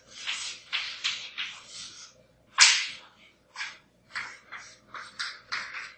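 Chalk drawing on a blackboard: a series of short scratching strokes, with one louder, sharper stroke about two and a half seconds in.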